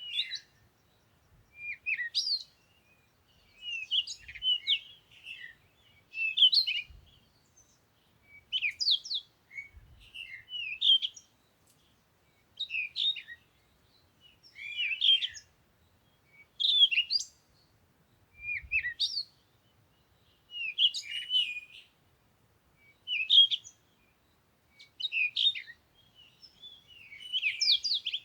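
A bird singing short, chirping phrases, one about every two seconds, with quiet gaps between them.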